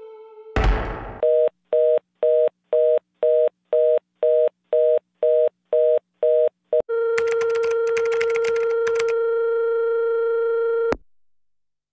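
A short burst of static, then a telephone fast busy signal: a two-note beep repeated about twice a second, about a dozen times. It gives way to a steady, buzzy phone-line tone with crackling static that cuts off suddenly near the end.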